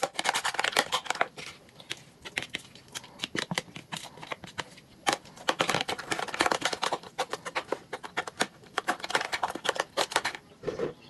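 A fork or utensil clicking rapidly against a bowl as eggs are beaten with the vegetables, in several bursts of quick taps with short pauses between.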